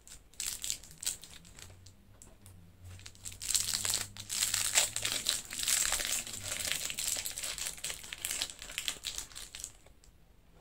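Crinkling of a shiny twist-wrapped chocolate candy's wrapper as it is unwrapped by hand, a run of crackles that grows denser partway through and stops shortly before the end.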